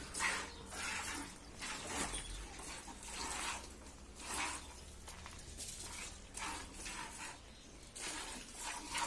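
A cow being milked by hand: short spurts of milk hiss into a plastic bucket, roughly one every half second to a second.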